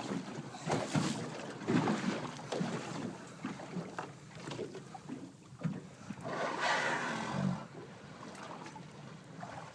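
Water slapping and lapping against a small boat's hull, with wind on the microphone and scattered light knocks. About six and a half seconds in, a louder whooshing burst lasts about a second.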